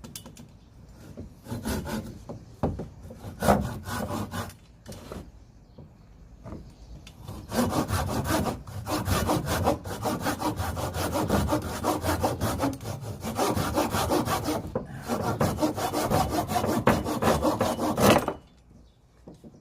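Hand saw cutting through a dead oak log for firewood. A few short starting strokes come first, then about seven seconds in it settles into steady, rapid back-and-forth sawing, with a brief pause near fifteen seconds. The sawing stops a little before the end.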